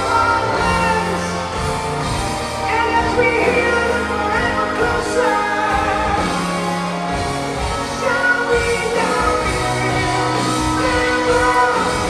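Live progressive rock band playing: a high male lead voice singing over electric guitar, keyboards, bass and drums.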